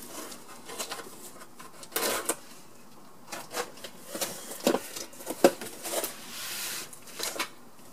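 Cardboard box being opened by hand: flaps pulled back and packaging handled, giving irregular rustles, scrapes and taps, with one sharp tap about five and a half seconds in and a longer rustle around six seconds in.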